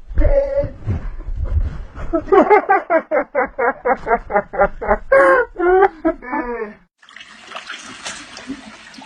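A voice making a rapid run of short pitched calls, about four or five a second, for several seconds. It cuts off abruptly and gives way to a steady rush of running water.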